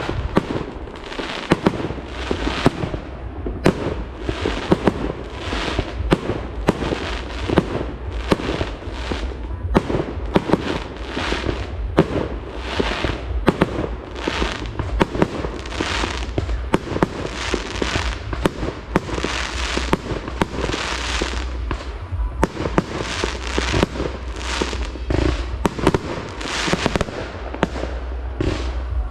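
Fireworks display: aerial shells bursting in quick succession, about one to two sharp bangs a second, each with a short fading tail.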